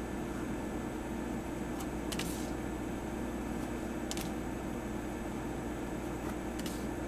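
Magic: The Gathering cards slid one at a time from the front of a hand-held stack, giving a few short, crisp card rasps, about four in all, over a steady low hum.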